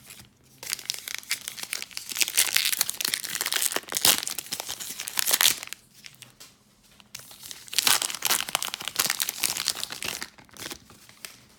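Foil wrapper of a baseball card pack being torn open and crinkled, in two bouts of dense crackling with a short pause between.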